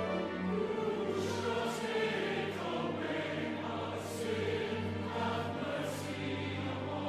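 Four-part mixed chorus singing "You shall take away our sin; have mercy upon us" together with an orchestra, the sung words' s and sh sounds cutting through a few times.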